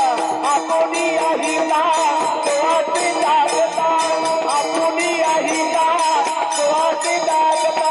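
Devotional kirtan music: voices singing a chant, with brass hand cymbals (tal) clashing in a steady beat of about three strokes a second.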